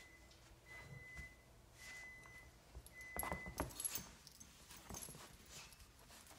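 A dog whining faintly in four thin, high, drawn-out tones of about half a second each, over some rustling and light metallic clinks.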